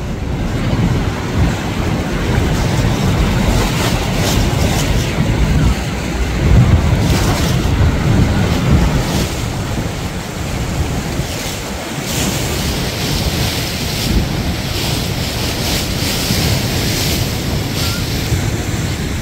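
Rhine Falls and the whitewater below it rushing in a loud, steady noise, with heavy wind buffeting the microphone.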